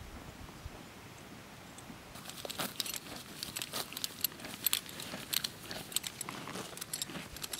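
Horse grazing: a quick, irregular run of crisp crunches and rips as it crops and chews grass. It starts about two seconds in.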